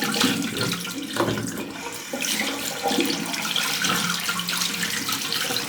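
Tap water running into a sink while a horsehair shaving brush is rinsed clean of lather under it, a steady splashing rush.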